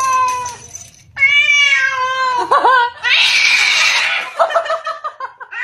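House cat meowing loudly: two long, drawn-out meows falling slightly in pitch, then a quick wavering cry and harsher, raspier yowls from about three seconds in.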